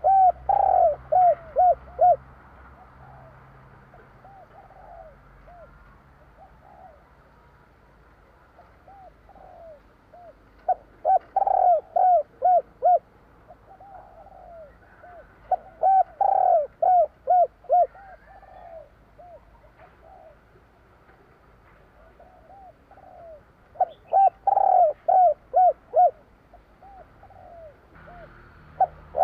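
Spotted dove (tekukur) cooing: four bouts of five or six short coos, each bout about two seconds long, spaced several seconds apart, with fainter coos between the bouts.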